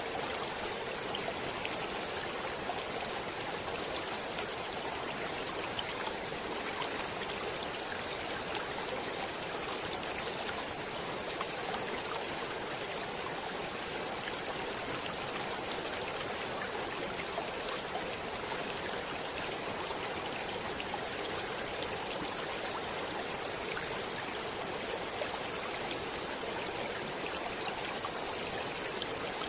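Stream water flowing steadily, an even, unbroken wash of water noise.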